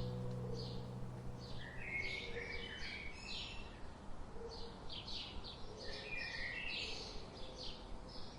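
Small birds chirping, many short quick calls overlapping one another, while the last held notes of acoustic guitar music fade out in the first two seconds.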